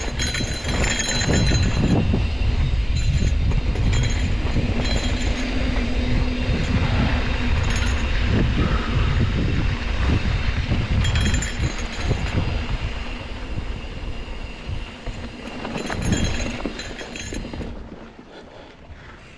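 Trek Roscoe 8 mountain bike riding over a rough dirt trail: a steady rumble of tyres on dirt, with the chain and frame clattering and clinking over bumps. The sound drops off near the end as the bike slows.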